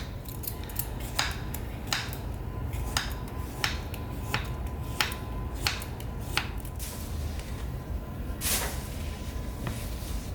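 A cucumber being peeled: a run of short scraping strokes of the peeler along the skin, about one every 0.7 seconds, with one longer stroke near the end.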